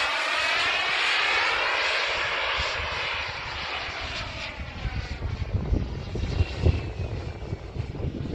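Turbine engine of a radio-controlled model jet rushing past, its hiss sweeping and fading as the plane flies away. Wind buffets the microphone in the second half.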